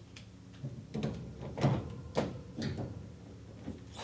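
A shelf being lifted and set onto its U-brackets, with a series of light knocks and clatters as it is handled into place.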